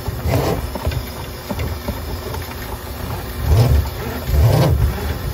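Electric drain-cleaning machine running, its 5/16-inch cable spinning in the clogged drain line as it is worked out and back in to clear the blockage. A steady low motor hum swells louder a few times in the second half.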